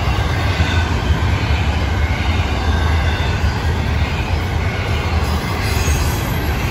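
Cars of an intermodal freight train, carrying trailers and stacked containers, rolling past close by: a steady, heavy rumble of steel wheels on the rails.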